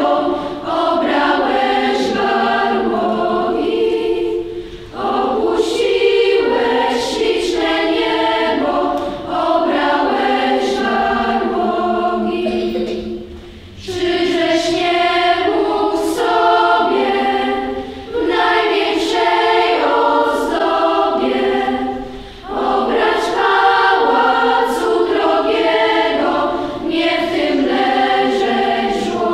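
Children's choir singing a Polish Christmas carol in phrases of about four seconds, with brief breaks for breath between them.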